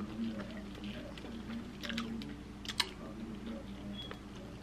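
Close-up chewing of fried chicken: wet mouth sounds with scattered crisp crackles and clicks, one sharper click a little under three seconds in.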